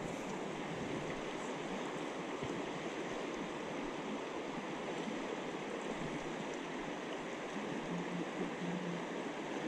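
Shallow river water running steadily over a stony, gravel riffle.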